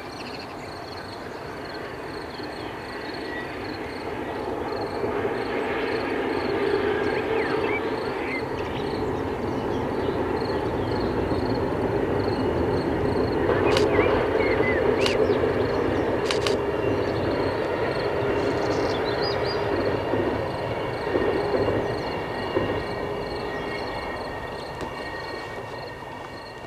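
Distant intercity train rumbling across a long railway viaduct. It grows louder over the first third, is loudest around the middle and fades away toward the end.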